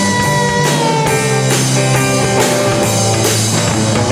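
A rock band playing live: electric guitar, bass and drum kit in an instrumental passage between sung lines, with a held vocal note trailing off about a second in.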